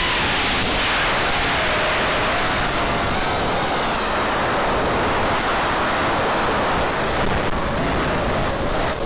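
FPV racing quadcopter's brushless motors and propellers heard from the onboard camera, a loud rushing noise of wind and prop wash with a faint motor whine that rises and falls in pitch as the throttle changes.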